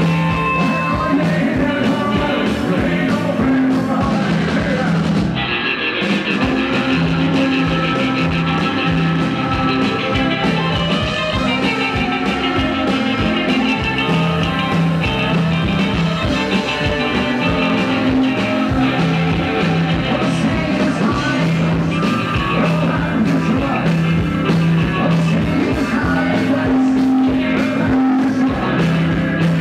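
Rock and roll played live by a rockabilly band on upright bass, electric guitar and drums, with a male singer over a repeating bass line.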